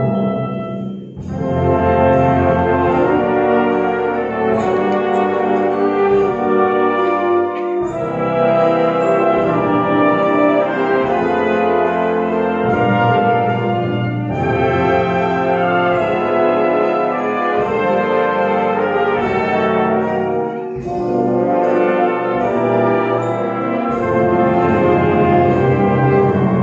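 Amateur wind band playing a piece in full ensemble, sustained chords moving from phrase to phrase, with a brief drop in the sound about a second in and again around twenty seconds in.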